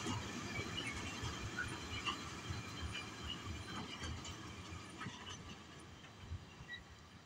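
Empty freight flat wagons rolling past on the track: a steady rumble with a few sharp clicks of wheels over the rail, fading away as the end of the train moves off.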